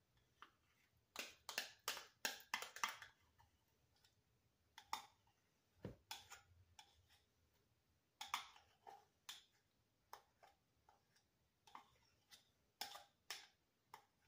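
A metal spoon scraping and clinking against a small bowl as pumpkin puree is scooped out, in faint short runs of clicks and scrapes.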